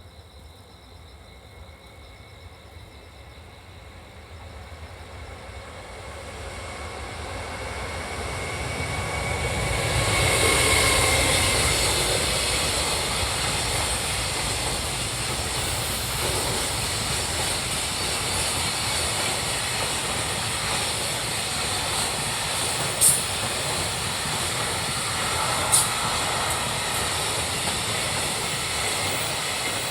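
Freight train approaching and passing at speed: the rumble and wheel noise build over about ten seconds, then hold loud and steady as the wagons run by, with two sharp high clicks in the second half.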